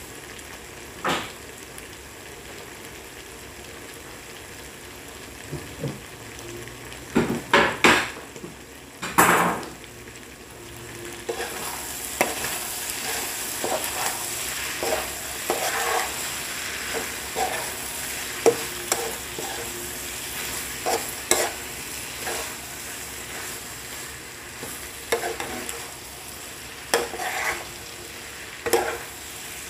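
Chicken gizzard bopis with diced carrots and potatoes sizzling in a frying pan as a spoon stirs it, with repeated short scrapes and taps against the pan. A few louder knocks come about a quarter of the way in, and the sizzling grows louder from about a third of the way in.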